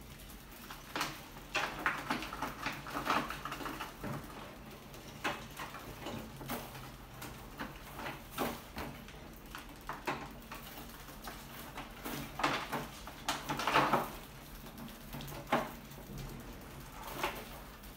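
Rats scrambling over a wire-mesh trap lid and glass tank: irregular scratching, clicking and rattling of claws on the mesh. It comes in uneven flurries, busiest a couple of seconds in and again about three-quarters through.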